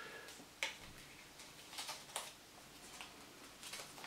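A folded 10-euro banknote crinkling as fingers pinch and crease it, with several short, faint paper crackles.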